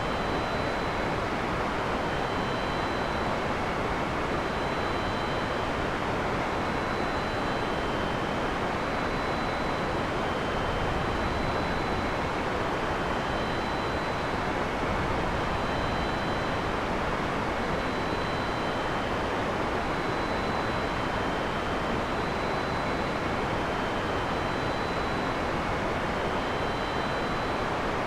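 Heavy rain falling steadily in a forest, a dense, even hiss with no thunderclap in this stretch. Faint short high-pitched tones recur every second or two above the rain.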